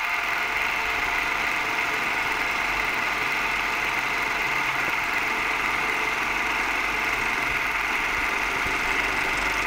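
A steady, even mechanical drone with a strong hiss, starting abruptly and running unchanged.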